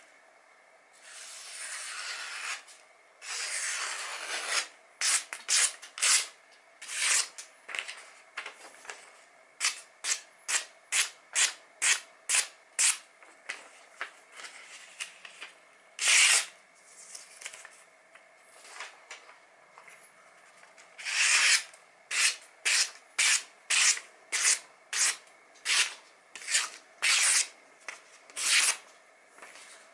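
A freshly sharpened knife slicing through magazine paper in a long run of short cuts, each a brief papery hiss, often about two a second, with a few longer, louder cuts; longer paper rustling near the start. It is a sharpness test: the edge is pushed through hanging paper.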